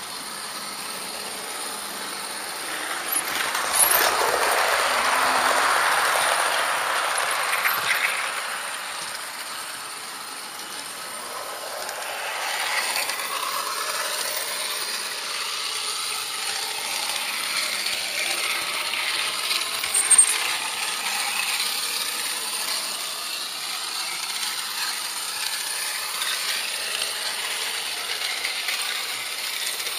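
HO-scale model train running on its track, heard from on board: a continuous mechanical running noise of motor and wheels. It grows louder for a few seconds near the start, and a single sharp click comes about two-thirds of the way through.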